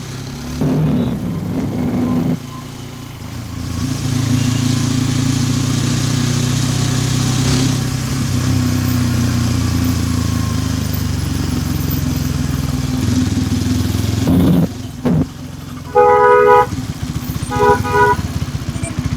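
Hero Xtreme 160R 4V's single-cylinder engine running under way, dipping briefly about two seconds in and then pulling steadily, with wind rush over it. Near the end a vehicle horn honks twice.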